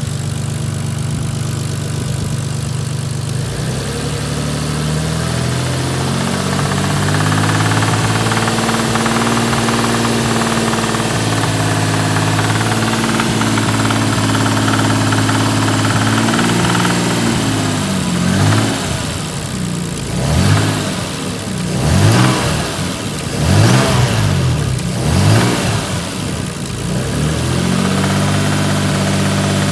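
Toyota 2JZ-GTE twin-turbo straight-six idling with a knock, then revved in about five quick blips before settling back to idle. The knock comes from a spun bearing.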